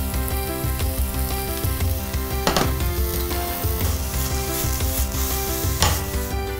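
Oyster mushrooms sizzling as they fry in oil in a pan, under background music with held notes and a steady low beat.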